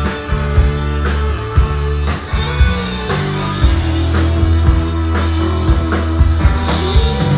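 Live rock band playing an instrumental passage on two electric guitars, electric bass and drum kit, with steady drum hits under held bass notes and a lead guitar bending notes twice.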